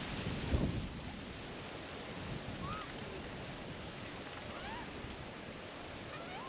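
Steady wind-like rustling noise with a low thump about half a second in, and three short, arched whistled bird notes spaced about two seconds apart later on.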